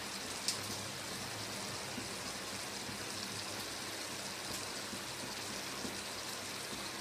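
Chicken and tomato masala gravy simmering and sizzling in a steel pot: a steady hiss, with one light click about half a second in.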